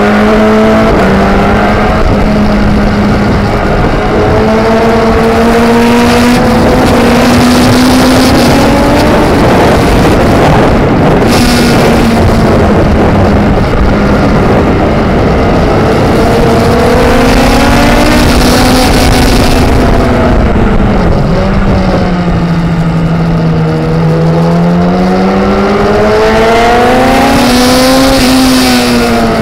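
A motorcycle at speed on a race track, heard from on board. The engine note rises and falls over and over as the rider opens and closes the throttle through the corners, under heavy wind noise on the microphone.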